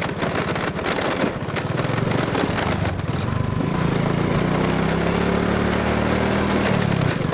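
Motorbike engine running while riding along a bumpy dirt track, under a steady rushing noise. The engine note grows clearer and slightly higher in the second half, then drops near the end as the throttle eases.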